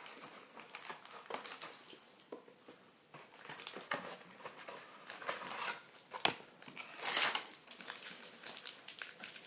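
Hands opening a trading-card hanger box and its pack: cardboard and plastic wrapper rustling and crinkling, with scattered small clicks and a sharper snap about six seconds in.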